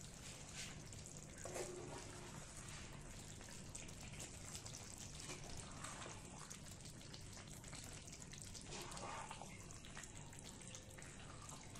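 Faint wet stirring: a spatula turning chicken pieces and coriander through thick gravy in a frying pan, with small scrapes and clicks over a low steady hiss from the simmering pan.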